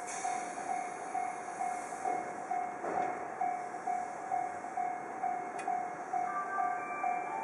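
A repeating electronic bell tone, about two and a half strikes a second, sounds over the steady noise of a Tobu 10030 series train standing at the platform. Near the end, a second, higher electronic chime starts: the station's departure signal sound.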